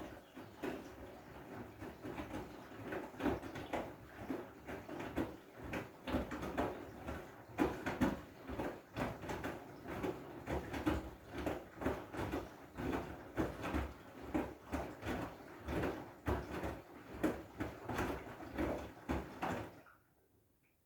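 Washing machine drum turning through a wash cycle with a load of wet blankets, the load thudding and sloshing in an uneven rhythm of about one or two knocks a second. The drum starts turning right at the start and stops abruptly near the end.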